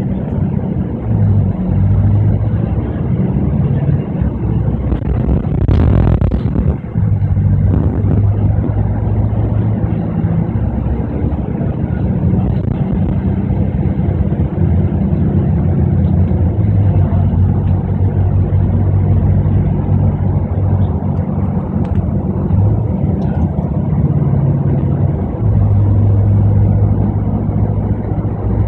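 Double-decker bus running along a highway: its diesel engine drones steadily under a layer of road noise, the engine note dropping and rising again a few times. A short clatter comes about six seconds in.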